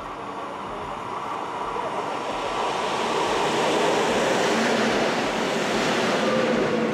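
Electric passenger train approaching and running past close along the platform: a rush of wheel and air noise that swells and turns loud about three seconds in, with a faint steady whine over it.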